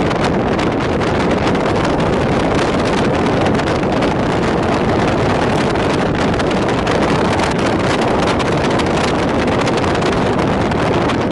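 Steady rush of a moving passenger train heard from on board: wheels running on the track and air streaming past, with wind buffeting the microphone.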